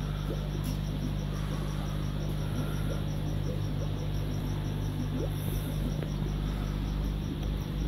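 Steady mains-frequency electrical hum from aquarium equipment, with a faint high chirping pulse repeating about five times a second.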